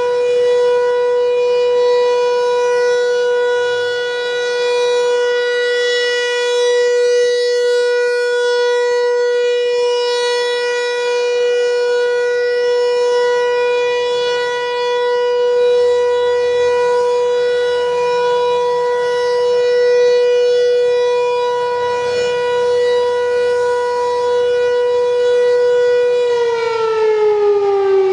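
Federal Signal 508 electromechanical outdoor warning siren sounding a steady single-tone alert during a test. It holds one pitch, then starts to wind down about two seconds before the end, its pitch falling.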